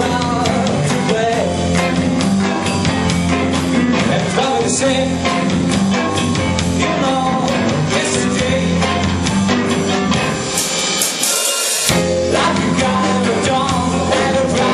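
Live rock band playing: electric guitar, drum kit and sung vocals. A little after ten seconds in, the bass drops out for about a second, leaving only the high end, before the full band comes back in.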